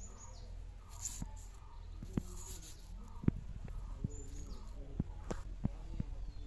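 Small birds chirping in short, high, falling calls, with a series of sharp clicks and taps from about two seconds in, the loudest about three seconds in.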